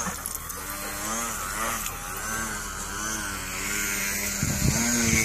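Radio-controlled airplane's motor and propeller buzzing as it flies low overhead, its pitch wavering up and down repeatedly with throttle and passes.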